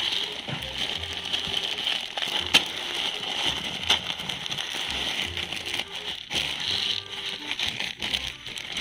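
Granular fertilizer pellets pouring from a plastic bag into a plastic bucket half full of pellets, a steady crackling rattle with a few sharper clicks, over background music.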